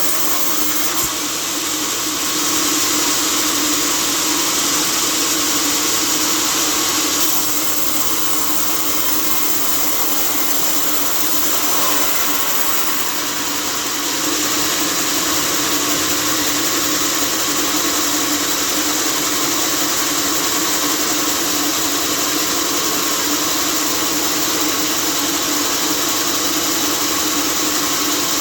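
Sawmill machinery running steadily: a loud, continuous mechanical noise with a constant low hum, slightly brighter for a few seconds near the middle.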